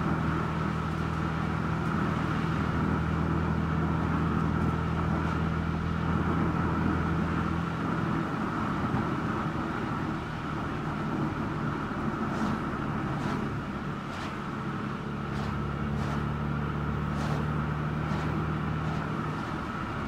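Car driving on a country road: steady engine hum and tyre noise. The engine note drops away about eight seconds in and comes back near fifteen seconds, with a run of faint ticks in the second half.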